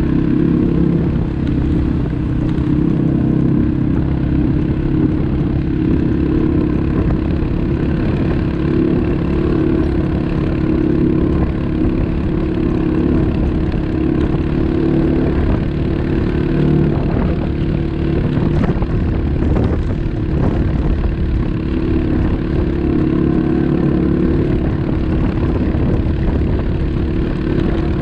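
ATV engine running at a steady pitch, with a few knocks and rattles about two-thirds of the way through.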